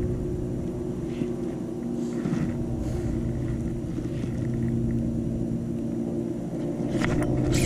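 Steady low engine drone: a few constant pitches over a rumble, growing a little louder near the end, with a few sharp clicks just before the end.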